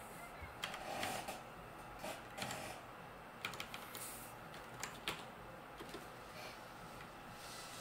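Faint, irregular light clicks and taps, some in quick clusters.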